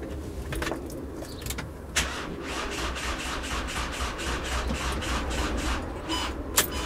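A VW T6 van's starter motor slowly cranking the engine without it starting, on a flat battery of about 11.5 volts. It starts abruptly about two seconds in and goes in even pulses of about four a second, and a sharp click comes near the end.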